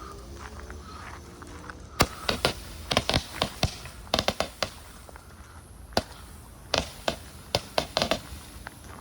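48-shot firework cake firing: a string of sharp pops coming in quick irregular clusters of two to four, starting about two seconds in.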